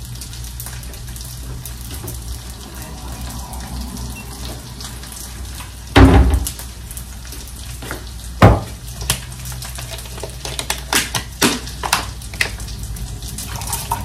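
Kitchen background of a steady hiss over a low hum, broken by two loud knocks about six and eight and a half seconds in, then a run of lighter clicks and taps as things are handled at the counter.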